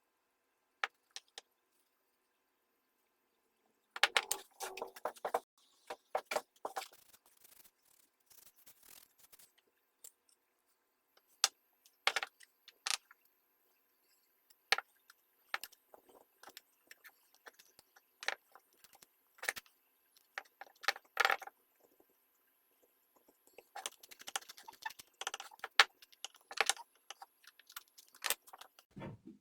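Irregular metallic clinks, taps and rattles of small metal parts and hand tools being handled on a workbench, in scattered clusters with quiet gaps. A faint steady high whine sits in the background through the middle.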